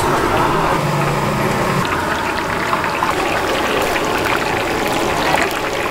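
Spring rolls deep-frying in hot oil, a steady sizzle with small crackles.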